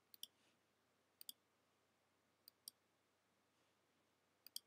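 Computer mouse button clicking four times, each click a quick double tick of press and release, over near silence.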